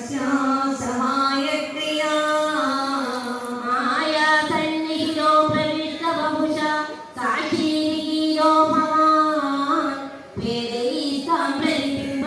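A high-pitched voice singing a slow melody in long held notes, with brief breaks between phrases about seven and ten seconds in.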